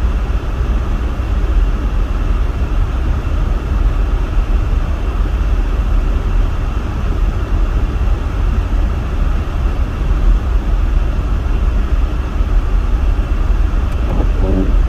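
Steady low rumble of a van being driven: engine and road noise heard inside the cabin, unchanging throughout.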